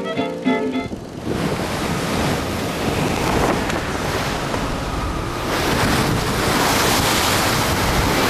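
Strong wind and rough sea aboard a sailing schooner: wind buffeting the microphone over rushing waves, growing louder about five and a half seconds in. A few notes of guitar music end about a second in.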